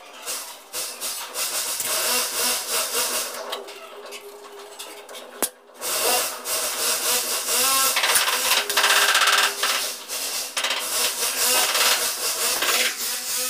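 Cloth rubbing and wiping against the tile wall around a wall-mounted toilet tissue holder: a rough, scratchy hiss of quick irregular strokes, heaviest in the second half, over a faint steady hum.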